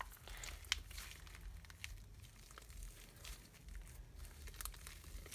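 Faint, scattered crackles and small clicks of hands working sticky fluffy slime mixed with shaving cream.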